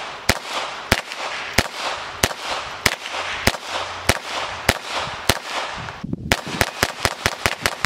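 Volquartsen ENV-9 semi-automatic .22 LR pistol firing. About ten sharp shots come at a steady pace of roughly one and a half a second. After a short pause about six seconds in, a faster string follows at about five shots a second.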